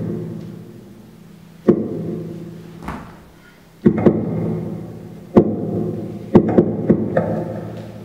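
Sparse, percussive music: single hard-struck low chords, each ringing out and fading over a second or so. They come about every two seconds at first, then several in quick succession near the end.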